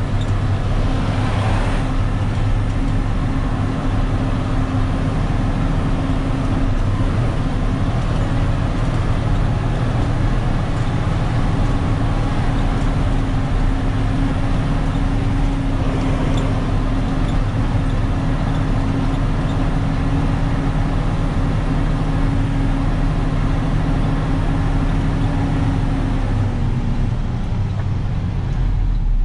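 Freightliner 122SD dump truck's diesel engine running steadily under way, heard from inside the cab; the engine note drops a little near the end as it eases off.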